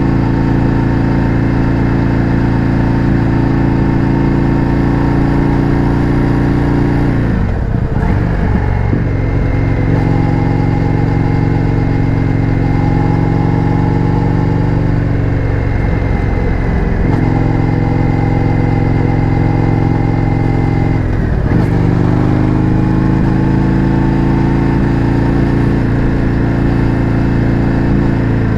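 Indian FTR 1200's V-twin running through an Akrapovič exhaust at road speed. The engine note is steady, with three short breaks about 8, 17 and 21 seconds in, as at gear changes, and it climbs in pitch after the last one.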